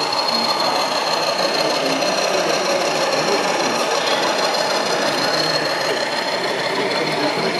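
Model diesel locomotive running past on a layout, hauling tank wagons: a steady mechanical whirring with a constant high-pitched tone.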